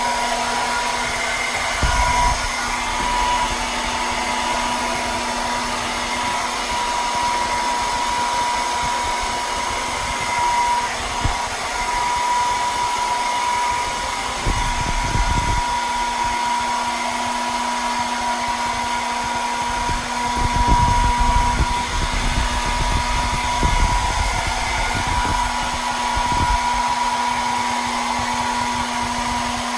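Electric hair dryer running steadily, blowing air with a constant motor whine, and a few brief low rumbles where the airflow buffets.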